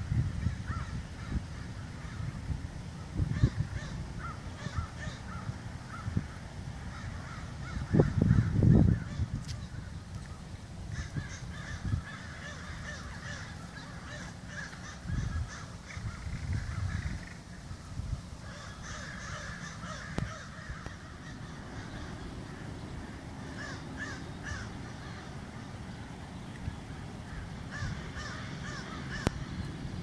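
Sandhill cranes calling, with clusters of short rattling calls every few seconds. A low rumbling noise comes over the microphone, loudest about eight seconds in.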